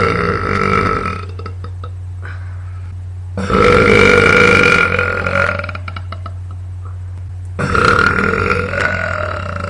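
A young woman burping loudly: three long, drawn-out belches, the first tailing off about a second in, the second lasting about two seconds from about three and a half seconds in, and the third starting near the end.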